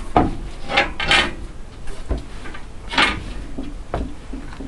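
Crunching and scraping in deep snow: about seven short, irregular crunches, the loudest about a second in and about three seconds in.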